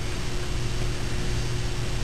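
Steady low hum with a hiss of noise over it, unchanging, with no distinct handling sounds.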